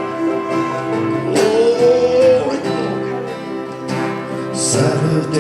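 Live church worship band playing a held, sustained passage with guitar, and a voice or lead line gliding up about a second in.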